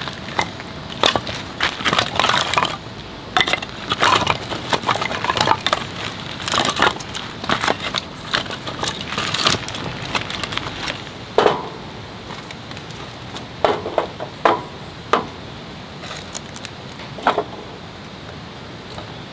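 Split dry firewood being handled: pieces knocking and clattering against each other as they are picked off a pile. In the second half come a few separate knocks as the pieces are set into a metal fire pit.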